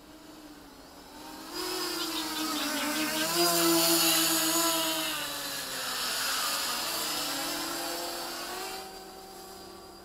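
450-size quadcopter's electric motors and propellers whining as it flies low past overhead, the pitch sliding up and down with throttle. It swells suddenly about a second and a half in, is loudest around four seconds, and drops away near the end.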